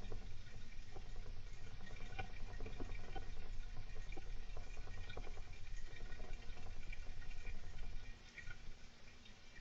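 Golden hamster active in its cage, making many small, irregular clicks and scratches over a low rumble. The sound dips for a moment near the end.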